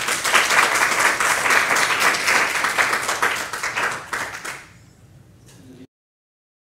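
Small audience applauding, a dense patter of many hands clapping that dies away after about four and a half seconds.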